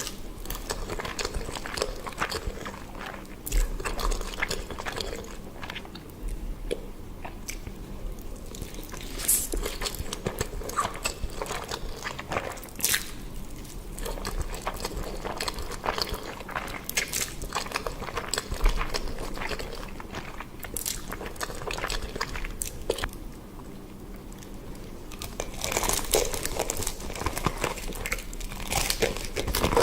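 Close-miked eating: crunchy bites and chewing, irregular crackling crunches that come thickest near the end.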